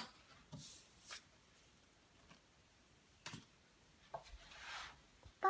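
Faint handling noises: a sharp click at the start, then a few soft clicks and short rustles.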